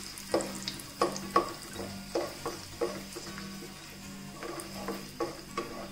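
Wooden spatula stirring and scraping through cashews and dried red chillies frying in oil in a nonstick wok, about three strokes a second over a light sizzle.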